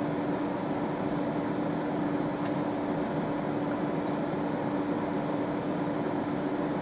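Steady machine hum with one constant low tone, unchanged throughout: a background appliance such as an air conditioner or fan running.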